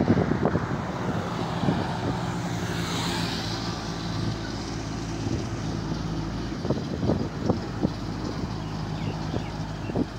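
Diesel engine of a container-hauling tractor-trailer running steadily as the truck moves slowly past, a low even hum, with road traffic noise from a car driving by and occasional crackles of wind on the microphone.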